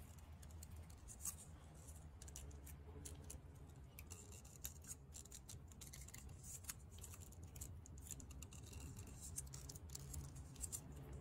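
Faint scratching and crinkling of PTFE thread-seal tape being pulled taut and wound around the threads of a plastic pipe fitting, in many small irregular ticks over a low steady hum.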